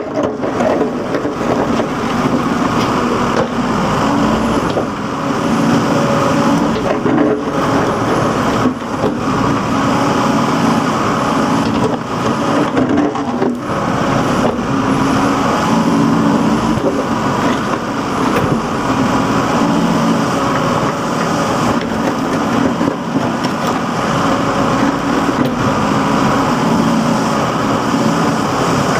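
Backhoe loader's diesel engine running under working load while it digs, its pitch rising and falling a little, with a few short knocks.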